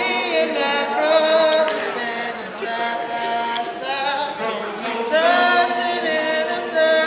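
Voices singing a cappella in harmony, with long held notes that overlap and swell.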